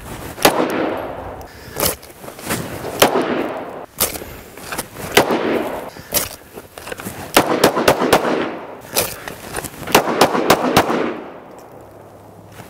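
Handgun shots: about twenty sharp reports, some single and some in rapid strings of three to five, each followed by a short echo. The shooting stops a little over a second before the end.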